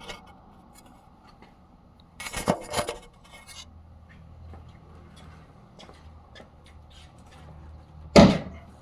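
Metal tool work on a car trunk's gas lift strut: scattered clicks and scraping as a screwdriver pries at the strut's retainer clip, a short burst of louder rattling strikes a couple of seconds in and one sharp loud clunk near the end as the strut comes free.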